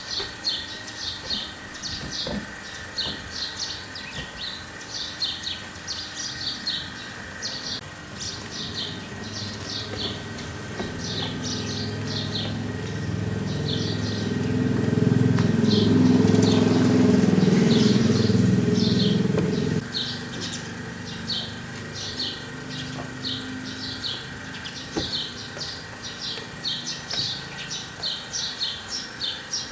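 Small birds chirping in quick, continuous short notes. A low motor hum swells in from about a third of the way through and cuts off abruptly about two-thirds through.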